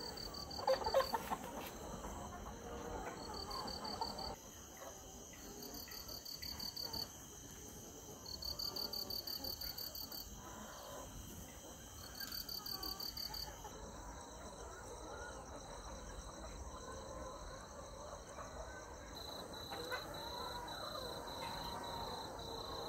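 Insects chirping in repeated trains of rapid high pulses over a steady high hiss, with a large flock of hens in a poultry shed clucking softly beneath. A brief louder burst comes about a second in.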